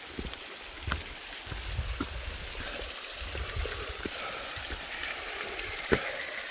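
Small waterfall cascading over rocks: a steady rush of water that grows a little stronger after about halfway. A few short knocks and low thumps sound over it.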